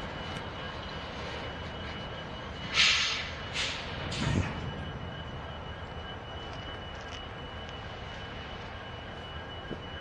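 Norfolk Southern diesel freight locomotives idling steadily at a distance, with three short bursts of air hissing from the stopped train's brakes about three to four and a half seconds in, the last ending in a low thud.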